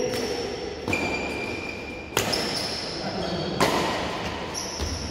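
Badminton rally in a large hall: three sharp racket hits on the shuttlecock, about one, two and three and a half seconds in, each followed by a brief high ringing.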